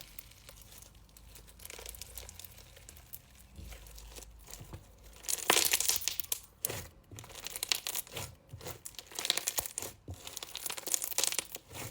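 Thick floam slime studded with foam beads being squeezed and worked by hand, crackling and popping in quick irregular clicks, loudest about halfway through and again near the end.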